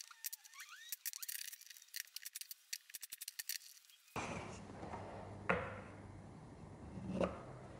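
Quick small metallic clicks from pliers gripping a brad nail in the wooden jig, levered against a hammer head to pull it out, with a brief rising squeak as the nail starts to come out. After about four seconds the sound changes to a steady room hiss with two sharp knocks of wood on the bench.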